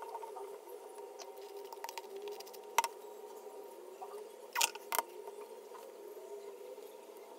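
A few sharp clicks and taps, three of them standing out about a third and two-thirds of the way through, over a steady low hum.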